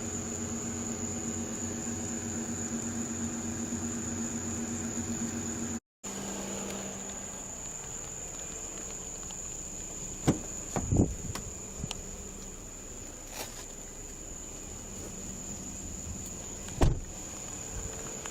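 Steady high-pitched insect drone, like crickets, over the low hum of an idling vehicle. The sound drops out briefly about six seconds in, and a few short knocks or clicks come in the second half.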